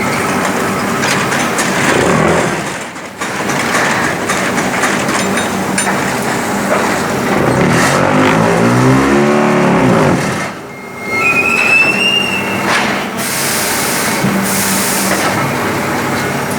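Pumice concrete block-making machine running: steady clattering mechanical noise, with a motor whine that rises and falls about halfway through, a short high squeal just after, and two bursts of hiss near the end.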